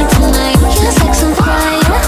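Electronic pop song playing: a fast beat of drum hits, each dropping in pitch, about four a second, under wavering melodic lines.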